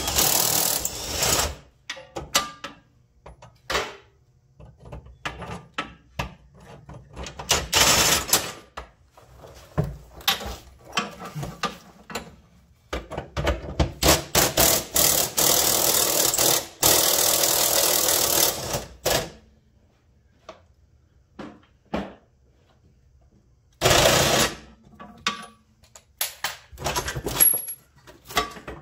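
Cordless impact wrench hammering in several bursts, the longest lasting about six seconds, as it runs out the bolts holding up a car's fuel tank. Scattered clanks of tools and metal fall between the bursts.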